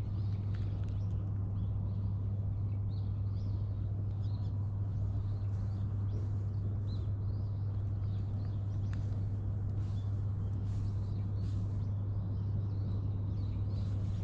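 Soft, scattered rustling of a hand stroking a cat's fur, over a steady low hum.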